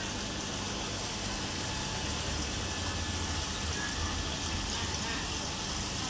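Aquarium filtration running: a steady rush of moving water with a low hum underneath.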